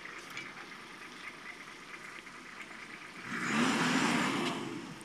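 A pickup truck's engine revving up strongly about three seconds in, then easing off, as the vehicle sets off. Before it there is only low background noise.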